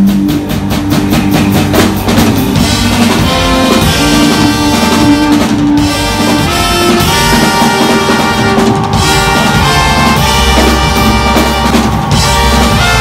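Live band playing an upbeat tune, with a drum kit keeping a steady beat under brass horns.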